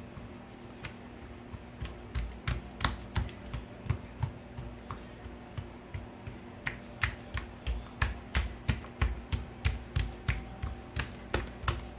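Hands patting and pressing greased feteer dough to stretch it thin on a work surface: a series of soft slapping taps, scattered at first and then coming steadily about three a second from the middle on.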